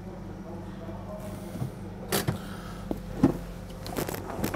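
A car engine warming up at idle with a steady low hum. Several short knocks and clicks from the driver moving in the seat and climbing out come through it, the sharpest about three seconds in.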